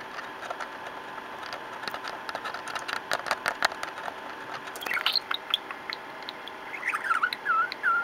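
Budgerigar up close: a run of sharp clicks and taps in the first half, then short chirps from about five seconds in and a quicker run of warbling chirps near the end.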